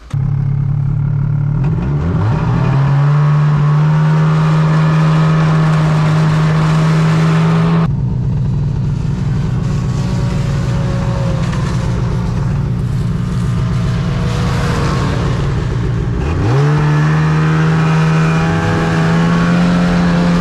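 Snowmobile engine running under way, rising in pitch as it accelerates about two seconds in and again near the end, and holding a steady high note in between.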